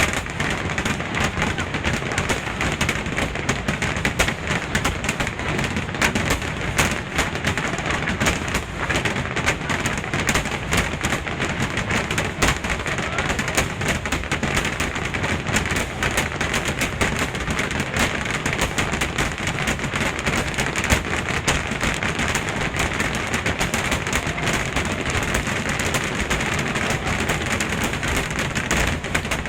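Fireworks finale barrage: countless shells bursting on top of one another in an unbroken, dense crackle of bangs that holds steady without pause.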